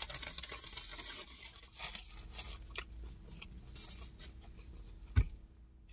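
Chewing a mouthful of a Popeyes fried chicken sandwich, the crispy breaded crust crackling and crunching, thickest in the first couple of seconds. A single low thump about five seconds in.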